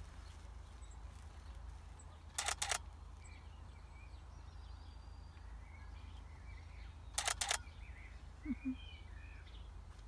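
Canon EOS 5D Mark IV shutter firing in two short bursts of about three frames each, some five seconds apart, with faint bird chirps in the background.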